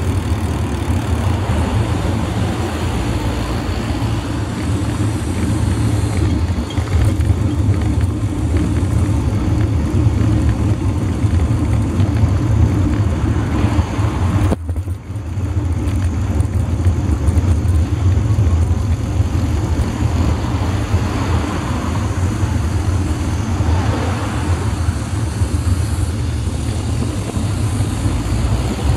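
Steady wind and road noise on the microphone of a camera mounted on a moving road bike, mostly a low rumble, with a brief dropout about halfway through.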